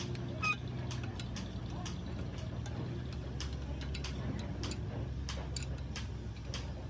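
Workshop machinery running with a low steady hum, with irregular metallic clicks and taps over it.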